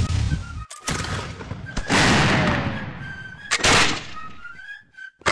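Battle gunfire: a run of loud cannon and gun blasts, the biggest about two seconds in with a long rumbling fade, and another near the end. A fife plays a tune underneath.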